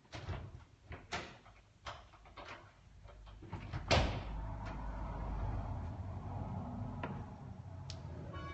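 Several knocks and clunks, the loudest about four seconds in with a short ring after it, then a low rumble, as a church bell is about to be rung.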